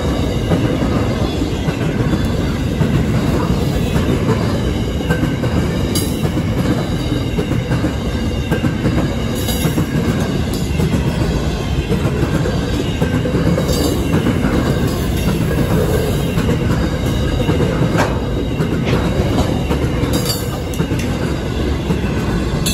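Grain hopper wagons of a freight train rolling past: a steady rumble of steel wheels on the rails, with a sharp clack every few seconds as wheelsets cross a joint.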